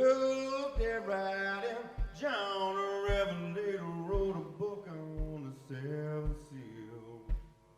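Live band music: a male voice sings long, drawn-out notes without clear words over a low thudding beat about once a second. It fades near the end.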